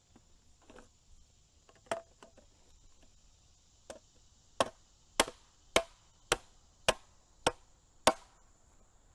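A hammer driving a raised garden bed's stacking stake into the ground. A few light taps and a single strike come first, then a steady run of seven hard blows a little over half a second apart.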